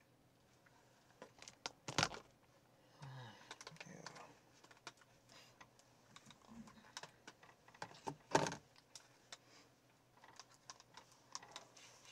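Faint, irregular light clicks and taps, with two louder knocks about two seconds and eight seconds in.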